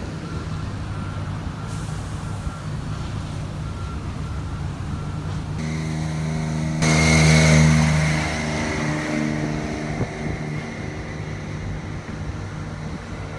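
A heavy truck's engine running, with a reversing alarm beeping at a steady pace at the start. About six seconds in, the engine grows louder, peaks, then fades again.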